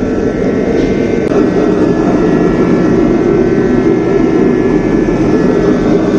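Oil-fired forced-air space heater running: the steady roar of its burner and fan, with a thin steady whine above it.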